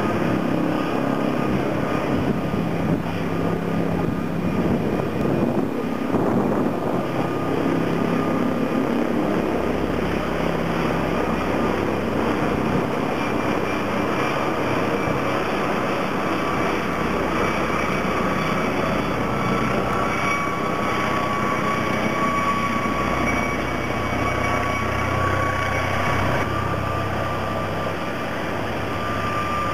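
Police helicopter flying low overhead: steady rotor and turbine noise with a low rumble and a thin high whine that grows clearer in the second half.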